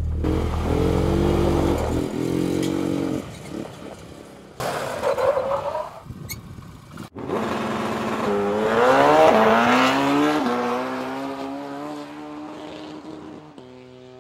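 Quad bike engine revving up and down, then a long rising rev that is the loudest part, settling and fading out near the end.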